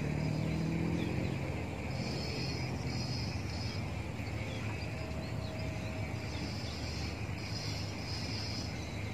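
Insects chirring in two high-pitched bursts of a second or so each, over a steady low outdoor rumble.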